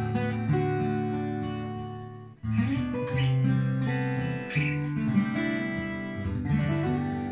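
Acoustic guitar strumming chords that ring out and fade, with a brief drop about two and a half seconds in before a fresh strum.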